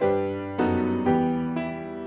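Piano playing slow chords: three struck about half a second apart, each left to ring and fade.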